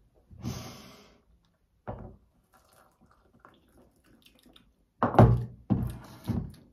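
Handling noises while tea is being prepared: a short noisy rush about half a second in, a single knock, a few faint clicks, then several loud thunks near the end.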